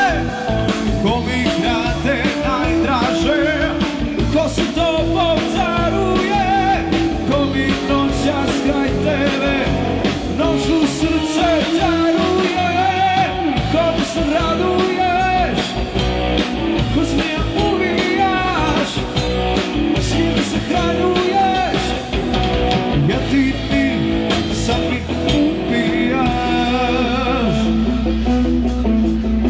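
Live rock band playing, with guitar and a singing voice.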